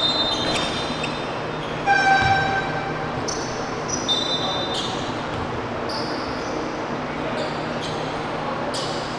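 Sneakers squeaking on a hardwood gym floor and a basketball bouncing during full-court play. Short high squeals come near the start, at about two seconds (the loudest) and at about four seconds, over a steady hubbub in the hall.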